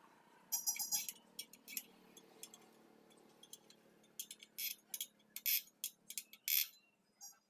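Small metal parts and tools clinking and clicking against each other during work on a spoked motorcycle wheel. There is a short rattle about half a second in, scattered clicks, and then a run of louder clinks toward the end.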